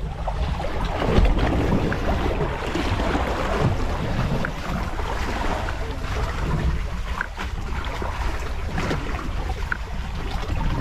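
Wind buffeting the microphone over choppy sea water splashing against a boat's hull, with a steady low rumble.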